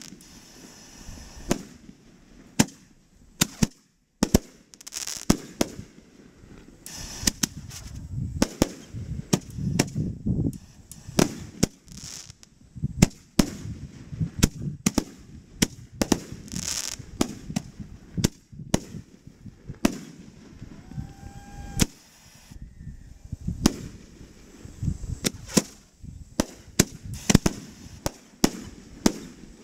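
A fireworks display going off: dozens of sharp bangs at irregular intervals, sometimes several a second, with low rumbling between them.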